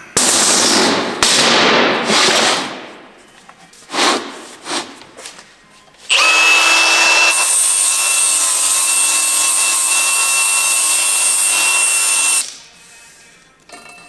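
Cordless angle grinder grinding on a welded steel frame: a loud run of about two seconds near the start that dies away, a short burst, then a steady run with a constant whine for about six seconds that cuts off suddenly.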